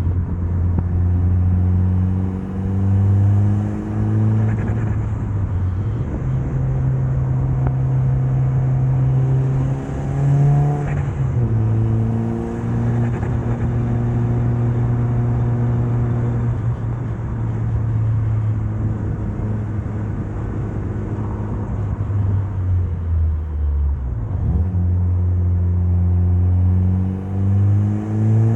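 Mitsubishi Lancer Evolution's turbocharged 4G63 inline-four under way, revving up and falling back several times as the driver works through the gears on a twisty road. Near the end the revs drop low and then climb again.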